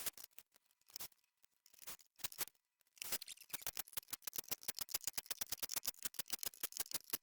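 A run of sharp clicks: scattered at first, then from about three seconds in a fast, steady clicking of roughly ten a second, like a hand tool working.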